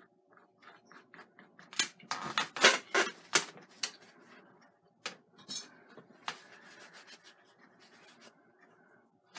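Oil-painting tools at work: a brush dabbing on canvas in light, quick taps, then a burst of louder sharp clicks and scrapes about two to three and a half seconds in, and a few scattered knocks later.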